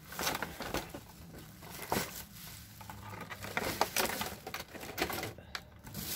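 Plastic packaging being handled: rustling and crinkling of a plastic bag with irregular clicks and knocks of hard plastic cases being moved.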